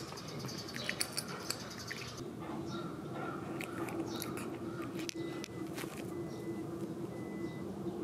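Munchkin cat crunching dry kibble, many small sharp crunches over the first two seconds. After that the crunching thins out and a faint steady hum remains.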